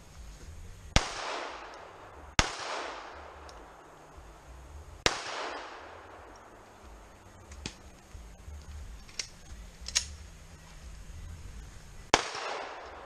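Pistol shots fired one at a time on a shooting course, with uneven gaps between them. There are four loud reports, each trailing off in an echo, and three fainter sharp cracks between the third and fourth.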